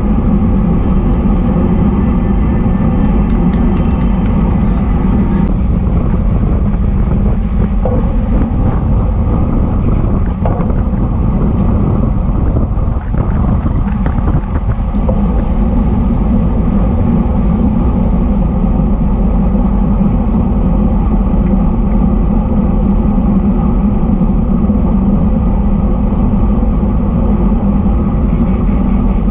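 Steady wind rush buffeting the microphone of a bike-mounted action camera on a road bike at racing speed, mixed with road noise.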